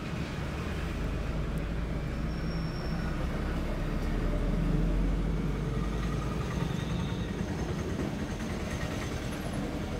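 Steady low rumbling noise, swelling to its loudest about four to five seconds in, of the kind passing traffic makes.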